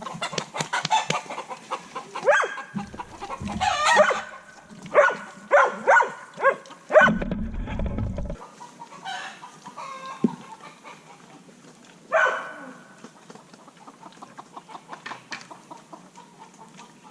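Chickens clucking and calling in a series of short calls, bunched in the first half and again about twelve seconds in. A brief low rumble comes about seven seconds in.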